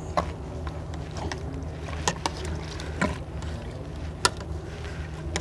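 Handling noises at a PVC drain pipe joint as cloth is packed into it to seal the pipe: a few scattered small clicks and knocks, over a steady low hum.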